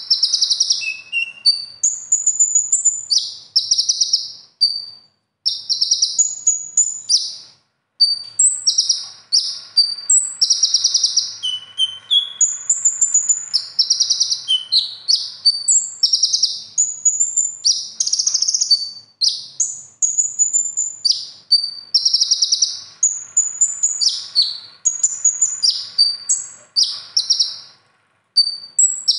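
Male kolibri ninja (purple-throated sunbird) singing a fast, varied song of high chirps, buzzy trills and short whistled slurs, delivered in dense phrases with brief pauses, rich in mimicked 'isian' material such as ciblek and tengkek calls.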